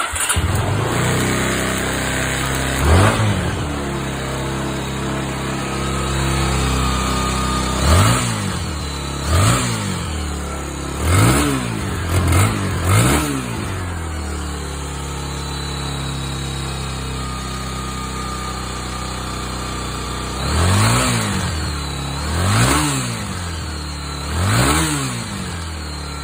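Honda GB250 Clubman's air-cooled single-cylinder four-stroke engine idling, with about nine short throttle blips that rise and fall back to idle, in a group early on and another near the end.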